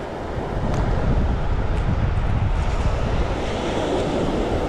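Wind buffeting the camera microphone in a steady low rumble, with surf washing on the beach behind it.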